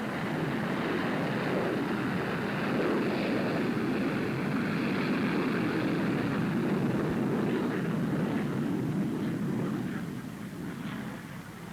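Steady rushing noise of a jet aircraft in flight, easing off about ten seconds in.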